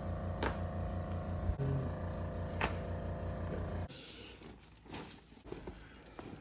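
A steady low motor hum with two sharp cracks, about half a second and two and a half seconds in. The hum cuts off suddenly about four seconds in, leaving faint scattered clicks and rustles.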